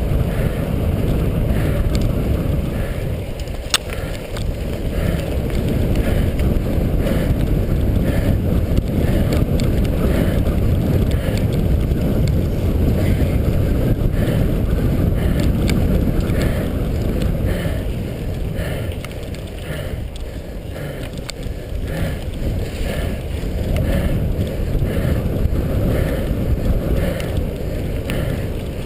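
Wind buffeting the microphone of a camera on a moving cyclocross bike, a steady low rumble, with light rattles and ticks from the bike over the course and one sharp click about four seconds in.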